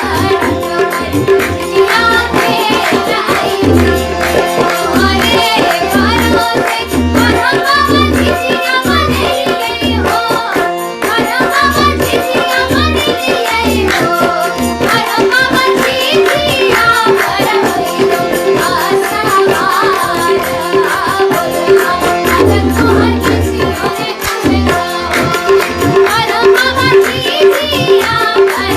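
Jhijhiya, a Mithila folk song: singing over tabla accompaniment with a steady, repeating drum rhythm.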